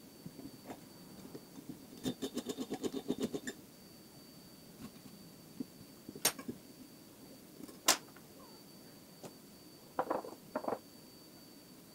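Quiet clicks and taps of small metal tools and a metal ring being handled on a workbench: a quick rattling run of clicks about two seconds in, then a few sharp single taps and some brief rustling near the end.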